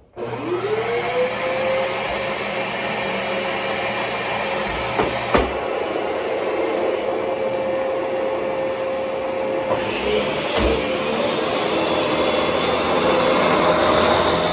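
Dyson DC17 Absolute upright vacuum cleaner switched on, its motor whine rising in pitch as it spins up over the first second and a half, then running steadily. Two sharp knocks come about five and ten seconds in, and the sound grows brighter and harsher from about ten seconds in.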